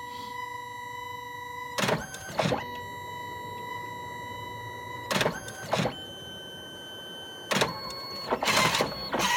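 DNP dye-sublimation photo printer printing a photo strip. A steady motor whine shifts to a different pitch about six seconds in, and pairs of brief, louder mechanical noises come about two, five and seven and a half seconds in.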